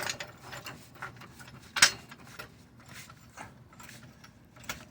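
Floor jack being pumped under a car, with scattered mechanical clicks and one sharp click a little under two seconds in. The car is being lifted to test for a popping noise in a replaced front subframe, and no subframe pop is heard.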